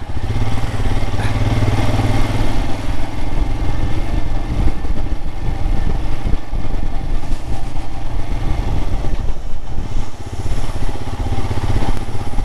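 Royal Enfield Himalayan single-cylinder motorcycle engine running steadily while being ridden, its low engine note strongest in the first couple of seconds.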